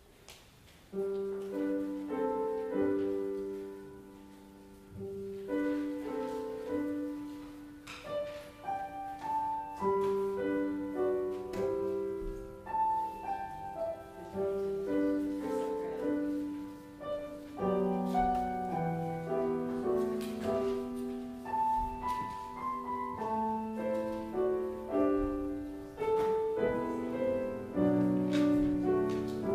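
Piano music starting about a second in: a melody over lower chords, each note dying away after it is struck.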